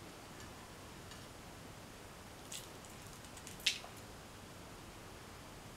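Two small sharp clicks a little over a second apart, the second louder: black peppercorns dropped by hand into a stainless-steel mixer-grinder jar. Otherwise faint room hiss.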